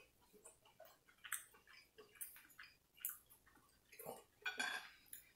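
Faint wet clicks of someone chewing steak, then a knife and fork scraping on a ceramic plate about four and a half seconds in.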